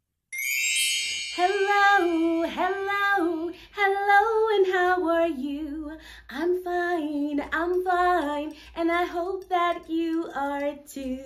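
A brief bright chime rings out and dies away within about a second, then a woman sings alone in short phrases, her voice rising and falling through a tune.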